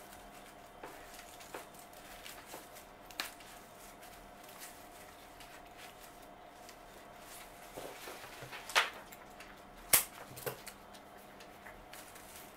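Faint rustling of greenery and scattered small clicks as fresh rose stems are pushed in among fir branches through chicken wire into floral foam, with one sharp snap about ten seconds in. A faint steady hum lies underneath.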